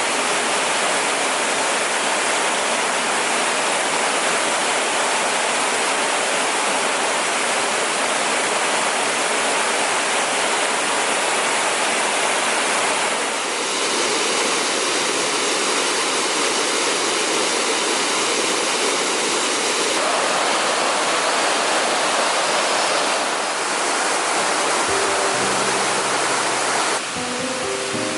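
Waterfall rushing steadily, a constant full roar of falling water. Background music with clear tones comes in over it near the end.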